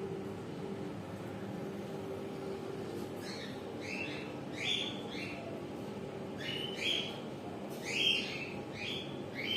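Pet parrot giving short upward-sweeping chirps, about ten of them in quick clusters from about three seconds in, over a steady low background hum.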